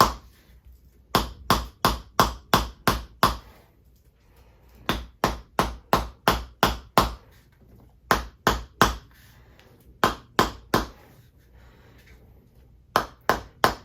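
Chiropractic adjusting hammer tapping over the shoulder blade in runs of sharp strikes, about three or four a second, with pauses of a second or so between runs.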